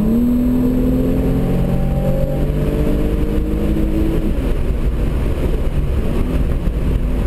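Hyundai Genesis Coupe 3.8's V6 engine heard from inside the cabin under hard driving. Its note steps up in pitch at the start and climbs slowly as the car accelerates, then gives way to road and wind rumble about four seconds in before a fainter engine note returns near the end.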